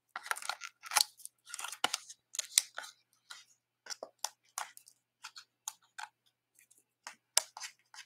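Cardstock and the paper liners of foam adhesive dimensionals being handled and peeled: a string of short crackles and rustles, thickest in the first three seconds, then scattered.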